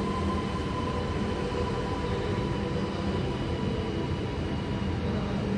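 Alstom Metropolis driverless electric metro train moving along the platform behind the platform screen doors. It makes a steady running rumble with a faint electric whine.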